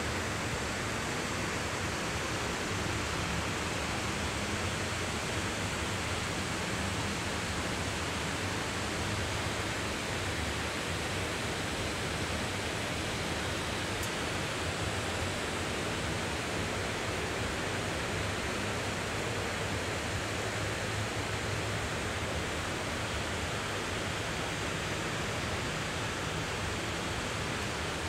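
Steady hiss of rain falling over a town, even and unbroken, with a low rumble of road traffic underneath.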